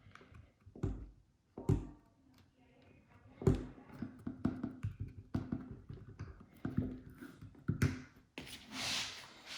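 Hands pressing and rubbing a Talon adhesive grip panel onto a Glock's polymer frame, with irregular soft taps and knocks as the pistol frame is handled. A rougher rubbing noise comes in near the end.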